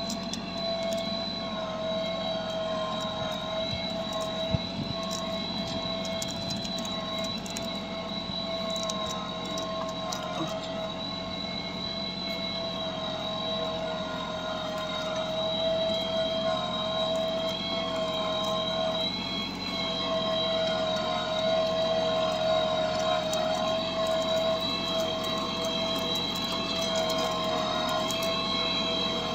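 Massey Ferguson 6028 Maxpro 4WD mini tractor's diesel engine running steadily under load, pulling a two-mouldboard reversible plough, with a steady high whine over the engine's hum. It grows a little louder about halfway through.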